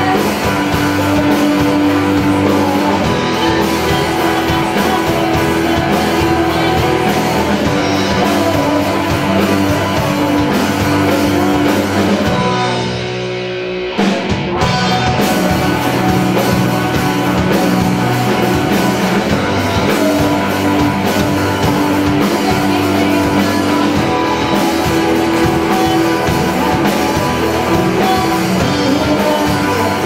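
Live rock band playing on drum kit, guitars and keyboard. About halfway through the band drops back briefly and goes quieter, then the full band comes back in with a sudden hit.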